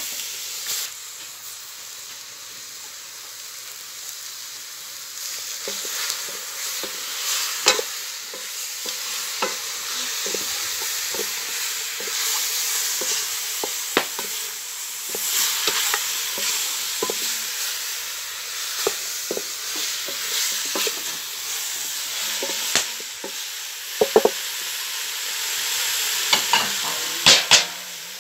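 Chicken pieces sizzling as they fry in an aluminium pot, with a wooden spoon stirring and knocking against the pot in scattered sharp clacks, several louder ones near the end.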